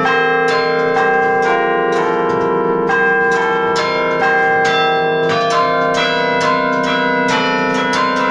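18-bell carillon playing a tune from its baton keyboard: bells struck one after another, about two to three notes a second, each ringing on beneath the next.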